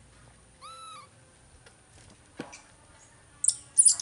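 Baby monkey calls: a short arched, whistling coo about half a second in, a single tap near the middle, then a few sharp, high squeaks near the end, the loudest sounds here.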